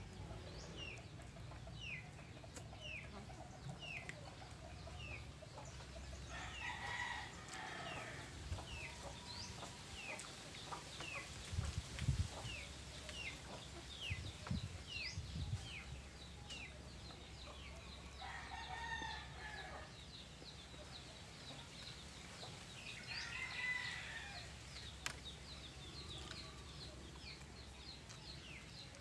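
Roosters crowing three times in the background over a steady run of short, high, falling chirps, about two a second. A few low knocks come about midway.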